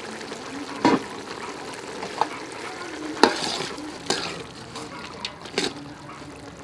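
A pot of soup boiling over a wood fire, bubbling steadily, with five or so sharp pops or clicks spread a second or so apart.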